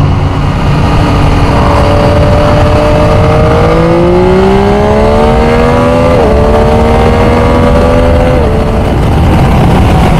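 Motorcycle engine under way, heard from the rider's own bike over steady wind and road noise. Its pitch climbs from about three and a half seconds in, dips briefly about six seconds in, climbs again and falls away near the end.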